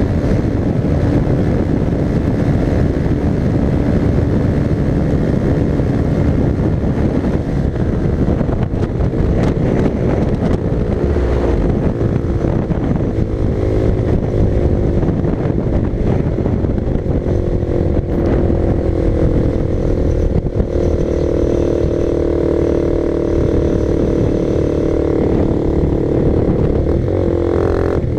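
Honda CB300R's single-cylinder engine running at speed under way, with wind noise. Through the second half the engine note climbs steadily as the bike accelerates, with a brief break just before the end.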